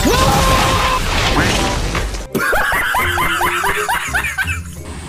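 Background music with sound effects: a dense, noisy stretch, then about halfway through a quick run of short rising squeaks, about four a second, lasting about two seconds.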